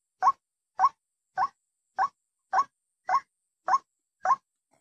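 White-breasted waterhen (ruak-ruak) lure call: a short call that rises in pitch, repeated in a steady rhythm a little under twice a second, eight times, with silence between the calls.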